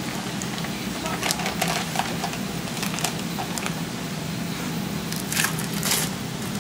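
Plastic packaging of sliced cheese crinkling in gloved hands: a scatter of crackles as the bag is handled and slices are drawn out, loudest about five and a half seconds in as the plastic film is peeled off a slice. A steady low hum runs underneath.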